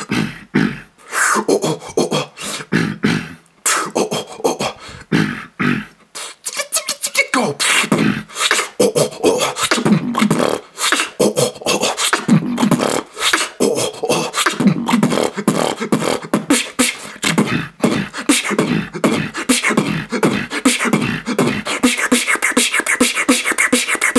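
Solo human beatboxing in a bass-heavy style: rapid vocal kicks, snares and mouth clicks in a dense rhythm. There is a short break about six seconds in, then a denser, unbroken run.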